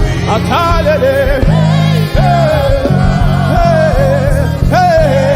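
Live praise and worship music: a lead voice sings long, bending melodic lines over a band with a steady, pulsing bass line.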